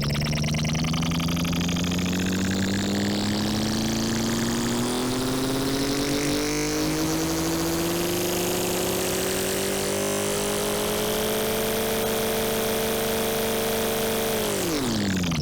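Synthesized sci-fi spaceship engine sound from the Phase Plant wavetable synth: a steady, buzzing pitched hum whose pitch climbs slowly and evenly like an engine revving up as the mod wheel is pushed up, then drops quickly just before it cuts off at the end.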